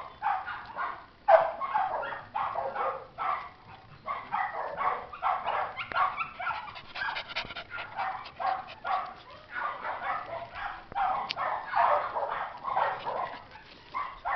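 Dogs barking, short barks following one another with few pauses.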